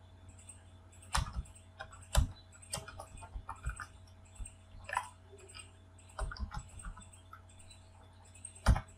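Computer keyboard being typed on, short keystrokes at an irregular pace with a louder keystroke near the end, over a faint steady low hum.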